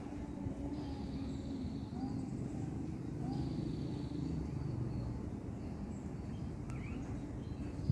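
Outdoor background with a steady low rumble, and a bird repeating a thin high call that falls in pitch, twice, a couple of seconds apart.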